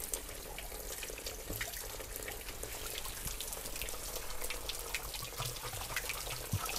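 Spring water trickling steadily from a gravity-fed village water spout, with many small drips and splashes.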